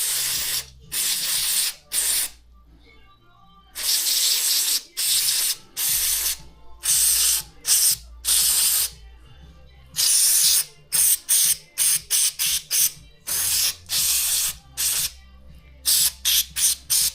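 Aerosol can of carburettor cleaner spraying in repeated bursts to wash out a VVT-i oil filter mesh screen. The squirts are long at first, up to about two seconds, then become a quick run of short ones near the end.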